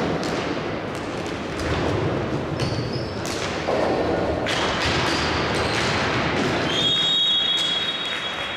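Indoor hockey in play in a sports hall: irregular sharp knocks of hockey sticks striking the ball and the ball hitting the side boards, about one or two a second, over a steady crowd and court noise. Near the end comes a long, steady, high referee's whistle lasting nearly two seconds.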